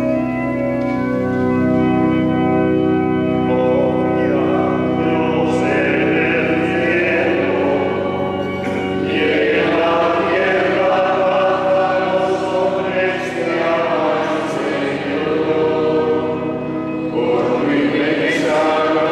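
Church organ holding sustained chords, then sung liturgy with organ accompaniment from about four seconds in: a priest's intonation answered by the congregation and choir.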